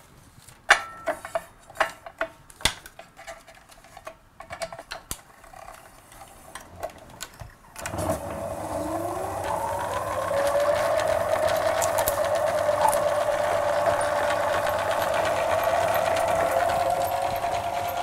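Clicks and knocks of a film reel being fitted onto a motorised film rewind bench. About eight seconds in, the rewind motor starts, its whine rising in pitch as it spins up, then running steadily as the film winds from one reel onto the other.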